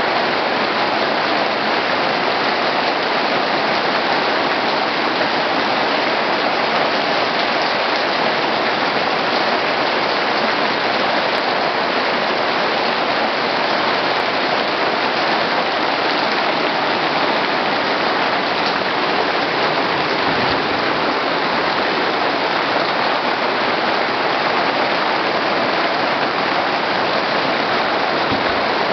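Heavy rain pouring down steadily, an even rush of falling water with no let-up.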